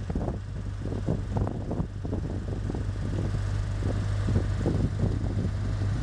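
Tractor diesel engine running steadily, driving the mounted backhoe's hydraulic pump through the PTO shaft while the boom lifts and swings. Rough, uneven wind buffeting on the microphone rides over the engine hum.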